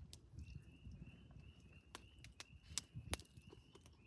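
Quiet eating: a few sharp crackles, loudest about three seconds in, as a burrito wrap is bitten into and chewed. Faint, even chirping about three times a second runs underneath.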